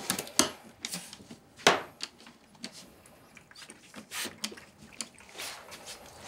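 Cats eating shredded chicken from ceramic plates on a wooden floor: soft chewing and smacking with scattered clicks and knocks as the plates are nudged, two of them sharper, about half a second and just under two seconds in.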